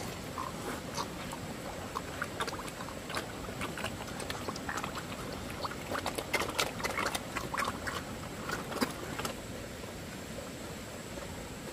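Animal sounds: many scattered short clicks and brief squeaky calls, busiest a little past the middle, that die away near the end, leaving a steady low hiss.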